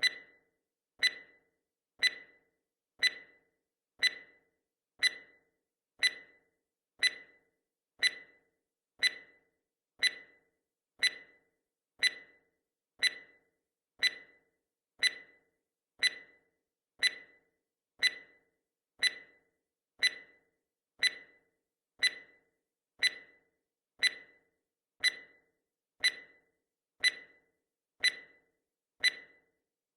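Countdown timer's ticking sound effect: one short, sharp tick every second, evenly spaced, marking off each second of the count.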